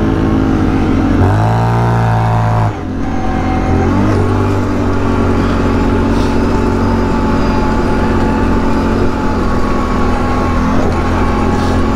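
Can-Am Outlander 1000 ATV's V-twin engine through an RJWC dual exhaust, revving up about a second in and dropping off sharply near three seconds. It then runs steadily under throttle as the machine rides along.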